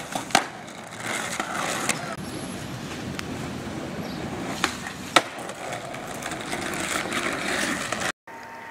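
Skateboard rolling on asphalt, its wheels giving a steady rumble, with several sharp clacks of the board hitting the ground. The sound cuts off suddenly shortly before the end.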